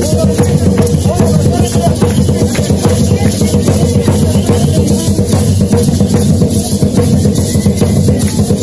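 Loud dance music with a fast, steady drumbeat that plays on without a break.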